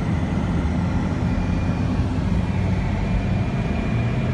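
Steady road noise inside a moving car: a low, even rumble of the tyres and engine while driving.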